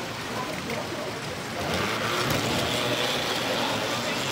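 Toy trolley car running on its track: a steady motor whir with wheel rumble that grows louder about a second and a half in as it comes close.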